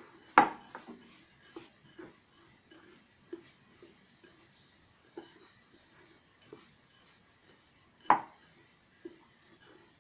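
Crushed biscuit crumbs and melted butter being mixed by hand in a bowl: soft, repeated knocks and scrapes against the bowl, with two sharper clinks of the bowl, about half a second in and about eight seconds in.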